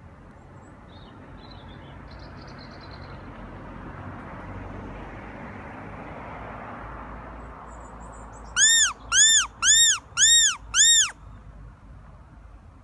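Fox call (mouth-blown predator whistle) sounded five times in quick succession, each a short, loud squeal that rises and falls in pitch, used to lure red foxes. It plays over steady background noise.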